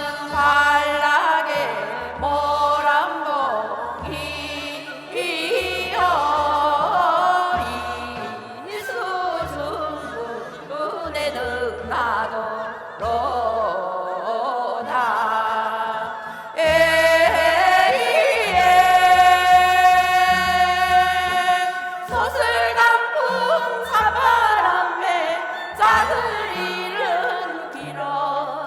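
Korean folk song (minyo) sung with instrumental accompaniment over a steady drum beat. The voice slides and wavers between notes, with one long held note in the middle.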